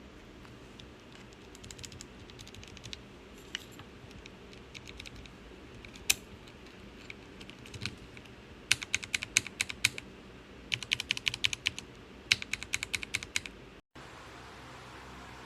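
Typing on a mechanical keyboard fitted with Gateron Milky Yellow Pro linear switches: scattered single keystrokes at first, then three quick runs of rapid keystrokes in the second half, stopping abruptly a little before the end.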